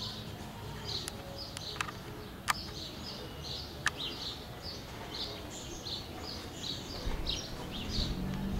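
A small bird chirping over and over, about two to three short chirps a second, with a few sharp clicks in the first four seconds and a low rumble coming in near the end.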